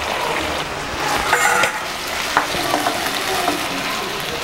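Pork cubes and their cooking liquid sizzling and bubbling in hot oil in a non-stick pan, stirred with a wooden spatula that clicks now and then against the pan. The pork's cooking water is being boiled down.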